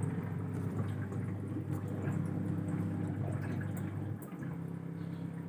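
Zanussi 7.5 kg top-loading automatic washing machine in its wash stage on the Delicate program: a steady motor hum with water sloshing in the tub as the agitation turns gently. The hum changes pitch about four seconds in.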